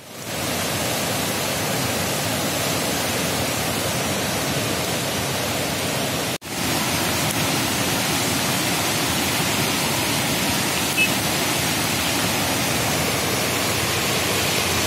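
Floodwater of the Valvanti river rushing over rapids: a steady, even rush of fast-flowing water, with a brief break about six seconds in.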